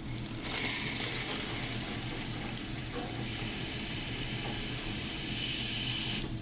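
Water running from a kitchen faucet through a faucet-mounted filter into a plastic water bottle, a steady stream that stops near the end.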